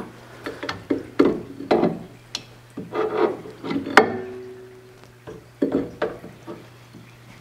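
A hand-lever grease gun is being pumped into a grease fitting on a vertical band saw. It makes a string of short rubbing, clicking strokes, about one or two a second, with a sharp click about four seconds in and a short pause after it.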